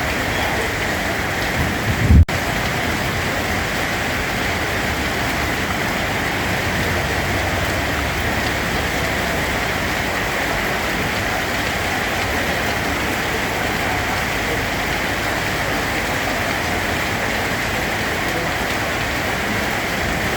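Steady rain falling, an even hiss. About two seconds in comes a short low thump, and the sound drops out for an instant right after it.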